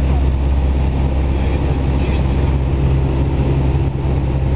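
Cessna's single piston engine and propeller droning steadily in flight, heard inside the cabin.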